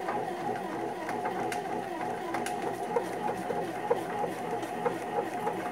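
Britânia Multi Pane bread maker running its kneading cycle: the motor and paddle hum steadily as they work bread dough, with irregular light knocks every second or so.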